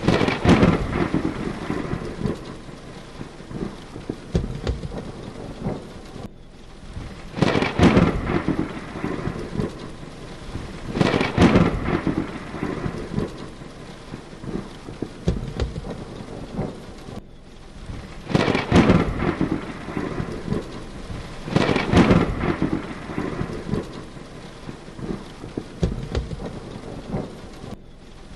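Heavy rain falling steadily, with thunder cracking and rumbling five times, each clap fading away over a second or two.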